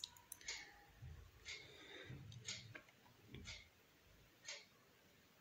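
Near silence with faint, evenly spaced ticks about once a second.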